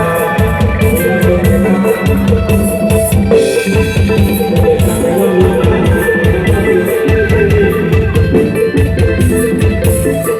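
Loud Thai procession music from a rot hae sound truck's sound system, with a heavy drum beat and plucked guitar over it.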